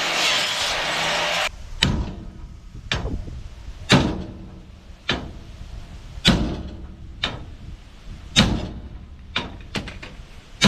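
A big hammer striking steel on a truck's leaf-spring mounts, about one blow a second, each a sharp clang with a short ring. Before the blows, a loud steady rushing noise stops abruptly about one and a half seconds in.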